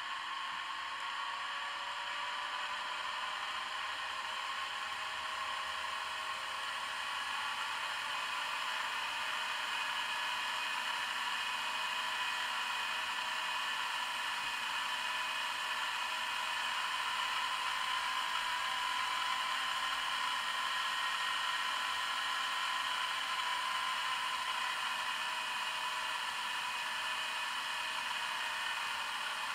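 N gauge Class 68 diesel model's ESU LokSound 5 Micro DCC sound decoder playing the Class 68 engine sound through its small speaker: a steady diesel run with a whirring hiss and several engine tones that drift slowly up and down in pitch.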